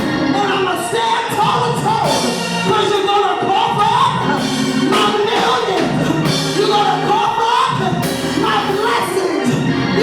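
Live gospel church music: a voice singing with sliding, held notes over steady sustained instrument chords.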